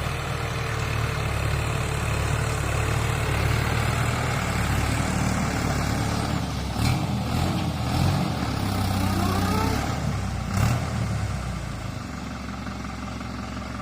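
Farm tractor engine running steadily while ploughing, with a couple of brief knocks, a little quieter over the last couple of seconds.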